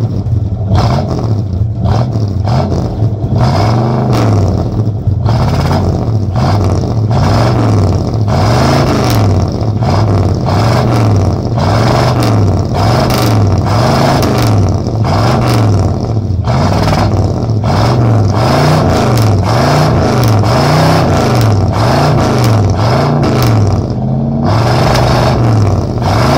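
1974 Cadillac Eldorado's 500 cubic-inch (8.2 litre) V8 being revved over and over, the engine pitch rising and falling about once a second.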